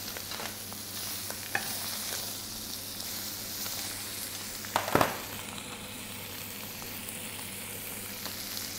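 Ptarmigan carcasses with heart, liver and gizzard sizzling in a hot frying pan, stirred with metal tongs. Small clicks throughout and one louder knock about five seconds in.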